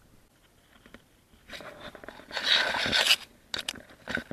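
Crunching and scraping close to the microphone: a dense stretch of about a second and a half in the middle, then a few short crackles near the end.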